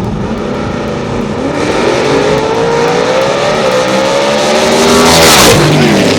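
Drag-racing cars accelerating hard down the strip, engine pitch climbing steadily. About five seconds in they pass at their loudest, and the pitch drops sharply as they go by.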